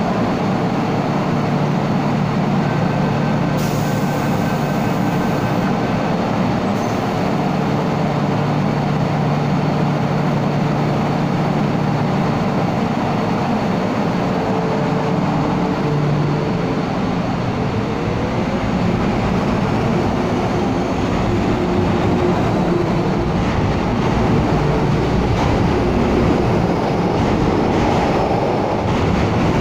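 Hong Kong MTR M-Train electric multiple unit standing at a platform, humming steadily. Its doors close, and it pulls away with a whine that rises in pitch as it accelerates.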